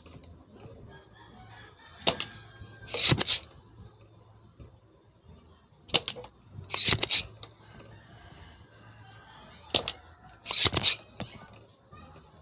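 Spring-loaded desoldering pump (solder sucker) working on a volume potentiometer's solder joints. Three times there is a sharp click followed under a second later by a longer, louder burst of noise.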